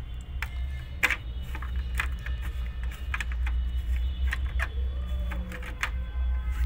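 Irregular light metallic clicks and clinks of a screwdriver and a nut knocking against a photocopier's metal frame as the nut is fitted, over a steady low hum.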